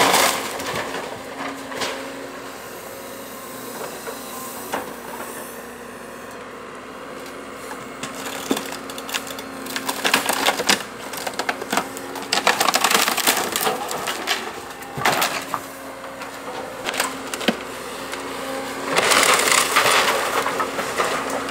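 Wooden building being demolished by a machine: roof boards and framing crack, splinter and crunch in irregular bursts as it is hit, loudest in the middle and near the end, over the steady hum of the machine's engine.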